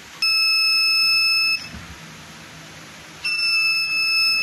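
Homemade magnetic door alarm sounding a steady, shrill tone. It cuts off after about a second and a half and comes back on about three seconds in, as the door moves its magnet away from and back to the sensor.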